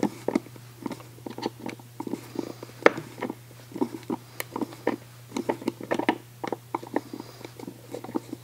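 Screwdriver driving a long screw into a Winchester 1892 double set trigger assembly, the screw compressing the trigger springs as it turns: a run of small irregular clicks and creaks, several a second.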